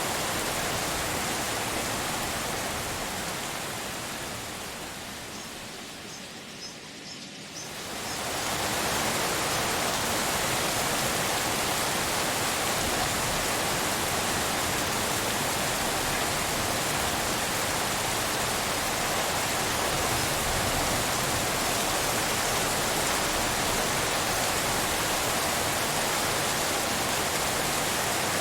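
Steady rain ambience shaped as pink noise, an even hiss of falling rain. It fades down from about three seconds in, comes back up sharply near eight seconds, then holds steady.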